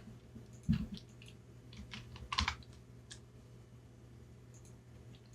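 A few scattered keystrokes on a computer keyboard, irregular and light, with a cluster about two and a half seconds in, over a faint steady hum.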